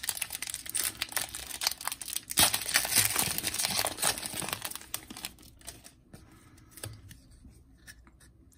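Shiny foil wrapper of a 2021-22 Donruss Soccer trading-card pack crinkling and tearing as it is ripped open by hand, loudest about two to four seconds in. After about five seconds only faint rustles are left.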